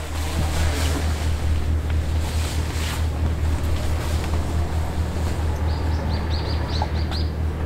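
A steady low engine drone under a wash of wind and water noise, typical of a motorboat running on the sea. A few short high chirps come near the end.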